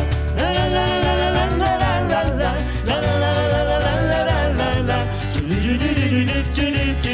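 Band playing the instrumental break between verses of a song: a melody of long held notes over a steady bass line.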